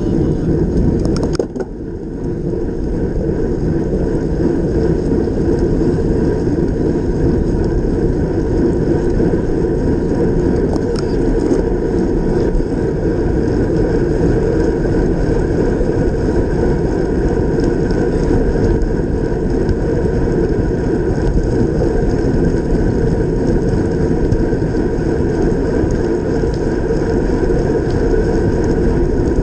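Steady wind rush and tyre noise picked up by a bicycle-mounted camera riding at race speed on a wet road, with a brief knock about a second and a half in.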